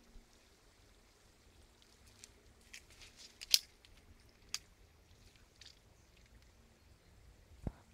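Dry leaves and twigs crackling as someone moves through undergrowth: sparse light clicks, the sharpest about three and a half seconds in, and a dull knock near the end.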